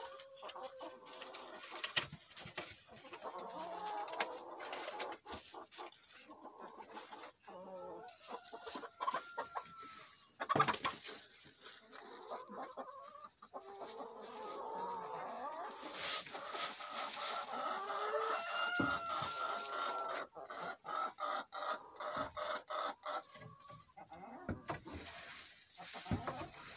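Chickens clucking and calling, with one longer drawn-out call about two-thirds of the way through. Frequent knocks and clicks come from handling egg cartons and scraping bedding out of a wooden nesting box.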